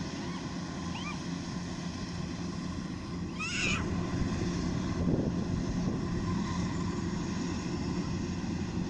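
Kubota DC-105X combine harvester running steadily while harvesting rice, a continuous machine drone with steady tones. A few short high chirps sound over it, the clearest about three and a half seconds in.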